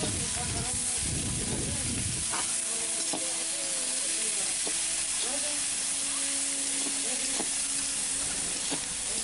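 Sliced onions frying in hot mustard oil in a steel kadhai with a steady sizzle, being browned until light golden. A spatula stirs them, with a few short scrapes against the pan.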